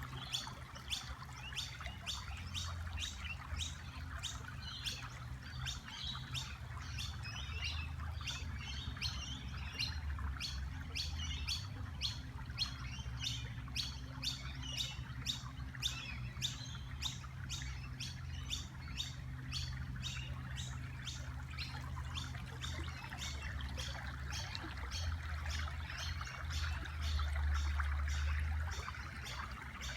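A bird chirping over and over in a steady rhythm, about two short chirps a second, over a constant hiss. A low rumble swells for a moment near the end.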